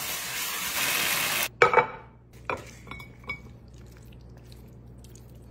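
Breaded pork pieces and julienned vegetables sizzling as they are tossed in a wok; the sizzle cuts off abruptly about a second and a half in. Then a few sharp clinks of a serving spoon against the wok and a plate as the stir-fry is dished up.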